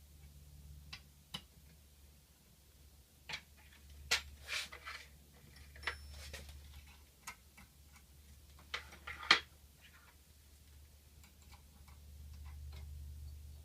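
Irregular light clicks and taps of small parts and hand tools being handled on a bench, a dozen or so, the sharpest about nine seconds in, over a low steady hum.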